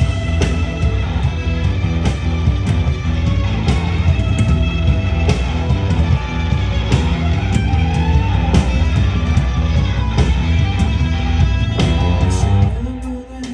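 Live rock band playing an instrumental break: electric guitars, bass and drums with a steady beat. Near the end the full band drops out to a quieter, sparser passage.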